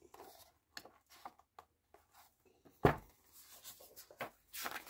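Paper pages of a large picture book being handled and turned: short papery rustles and light taps, with one louder thump about three seconds in.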